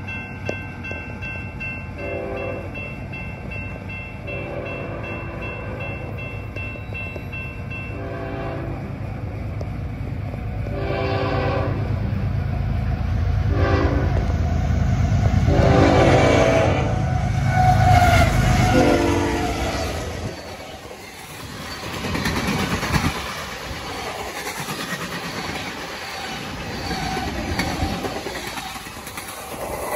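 A diesel locomotive approaching and sounding its horn in a series of about seven blasts, long and short, over an engine rumble that grows louder as it nears. The locomotive passes about twenty seconds in, and the rattle and clatter of the railcars rolling by follows.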